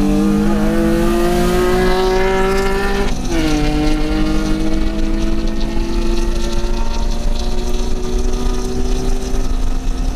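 Civic Si's K20Z3 2.0-litre four-cylinder engine pulling hard, heard from inside the cabin: its pitch climbs steadily, drops sharply with an upshift about three seconds in, then climbs again through the next gear.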